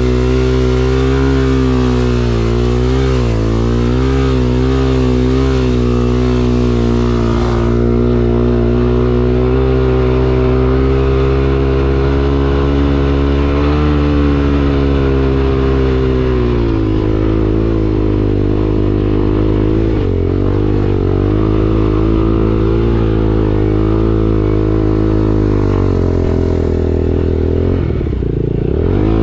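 BSE T8 motorcycle engine running, revs wavering up and down, then dropping to a lower, steadier pitch a little past halfway.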